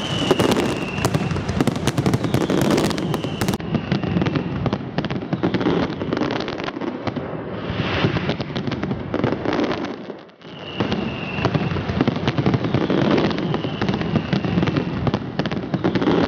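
Aerial fireworks display (a Valencian castillo): dense crackling and rapid bangs of bursting shells, with a few faint whistles falling in pitch. The sound briefly drops away about ten seconds in, then resumes.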